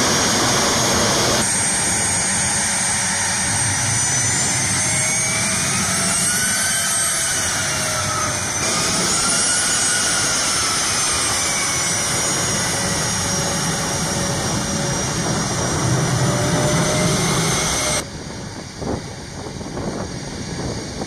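The twin TF34 turbofan engines of an A-10 Thunderbolt II run on the ground: a loud, steady jet whine made of several high tones, a few of which rise and fall. Near the end the engine sound drops away to a quieter background with a few knocks.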